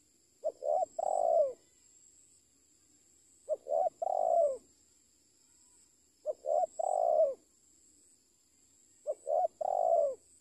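Spotted dove cooing: four phrases about three seconds apart, each two quick short notes followed by a longer coo.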